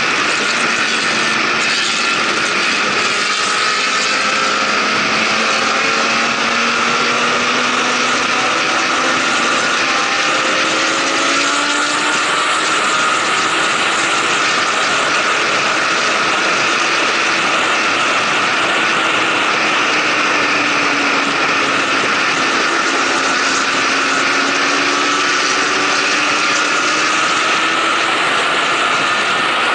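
Motorcycle at highway speed, about 130 to 145 km/h: heavy, steady wind rush on the microphone over the engine's drone, its pitch drifting slowly up and down.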